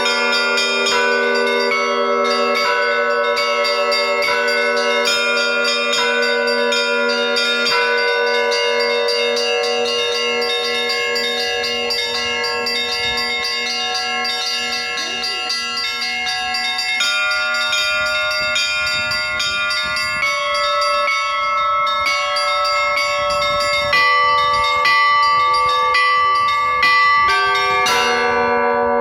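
Russian Orthodox church bells rung together by one bell ringer: quick, dense strikes of the small bells over the long hum of a deeper bell. The deep bell drops out about halfway through and comes back in near the end.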